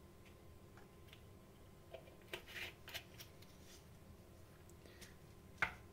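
Small plastic paint bottle being handled and capped: faint plastic clicks and rustles, a cluster of them about two to three seconds in, then one sharper click near the end.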